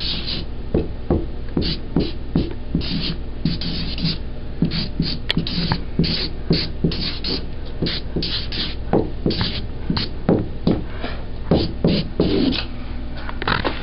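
A person beatboxing: an uneven rhythm of short hissy hi-hat and snare sounds alternating with low mouthed kick-drum thumps, two to three a second.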